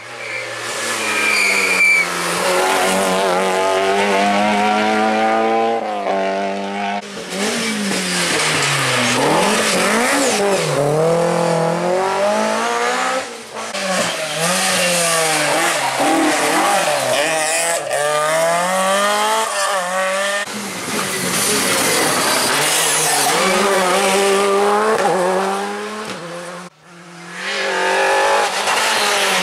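Several rally cars in turn, engines revving hard and rising in pitch as they accelerate up through the gears, then dropping as they lift and brake for the bends. The sound cuts abruptly from one car to the next a few times.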